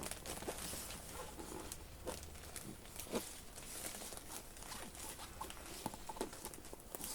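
Faint, scattered rustling, scratching and light taps of hands handling a diamond art canvas and its plastic packaging while rolling it back up.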